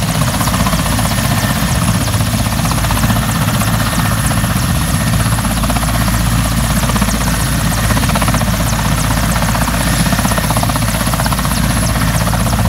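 Mil Mi-17 military transport helicopter running on the ground at close range, turbines and main rotor at a steady speed before lift-off. A rapid, even rotor beat runs over a high, thin turbine whine.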